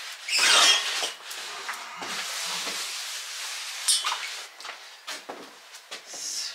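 Cloth rag rubbing oil over a stove top in wiping strokes, loudest about half a second in, with a sharp click near four seconds in.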